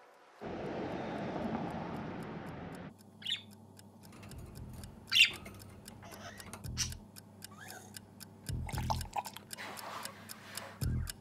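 Caged pet birds, a cockatiel and a budgie, chirping in short calls at intervals over a steady low hum, with a few soft low thumps. An even hiss fills the first couple of seconds before the calls begin.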